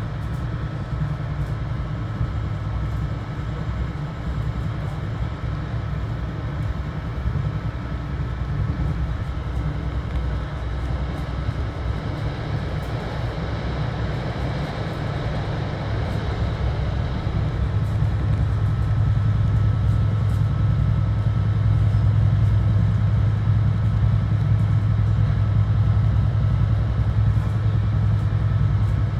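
Inside a Bombardier BTC-1B commuter rail coach running at speed: the steady low rumble of wheels on the rails, with a faint steady high hum. The rumble grows louder about two-thirds of the way through.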